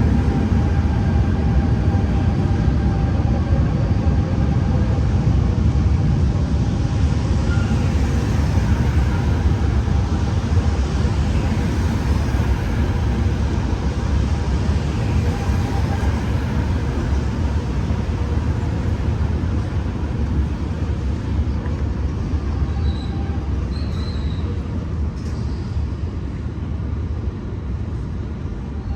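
MI 09 double-deck electric multiple unit running: a heavy, continuous rumble of the train with a few steady motor whine tones over it, slowly fading toward the end.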